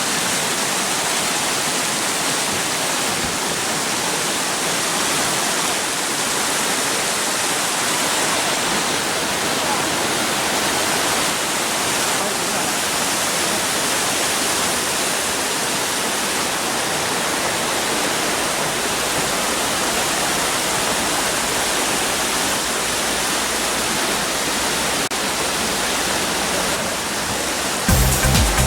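Steady rush of falling water, an unbroken, even roar of a waterfall or cascade. Music comes in at the very end.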